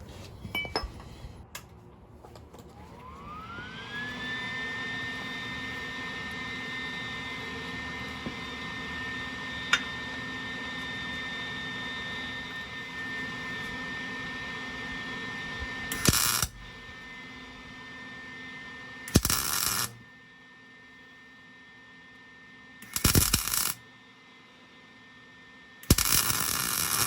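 Four short tack welds, each a loud crackling burst of under a second, about three seconds apart in the second half. Before them a high whine rises in pitch over a couple of seconds and then holds steady.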